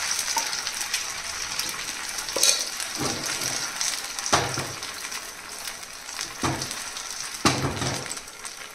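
Batter frying in hot oil in a non-stick pan over mustard seeds and curry leaves, sizzling steadily, with several short knocks as the pan is handled.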